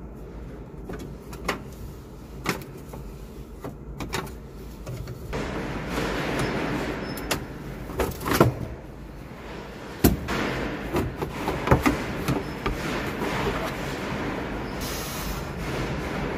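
Clicks, knocks and scraping as a John Deere 5320 tractor's plastic instrument cluster housing is worked loose from the dash, getting louder and rougher about five seconds in, with several sharp knocks.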